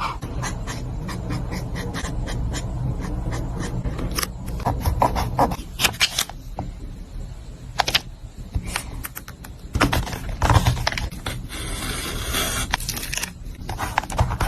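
Paper and stationery being handled on a desk while journaling: scattered clicks and taps, with short stretches of paper rustling and scraping, over a low steady hum.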